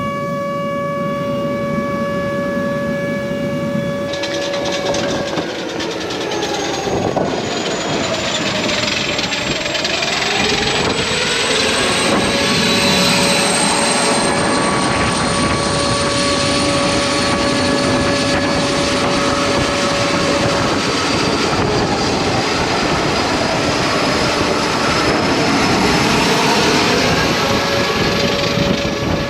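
Jet engines of a C-17 Globemaster III spooling up toward full takeoff thrust. A loud rush builds about four seconds in, and a high whine climbs slowly in pitch under it, while a steady horn-like tone sounds at the start, in the middle and near the end.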